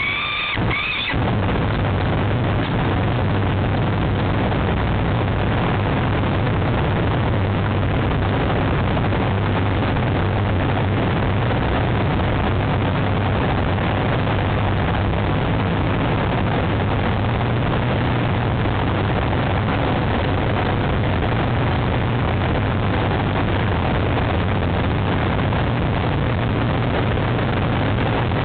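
Steady rumbling hiss with a constant low hum. A peregrine falcon's call, a stack of high tones, breaks off about a second in.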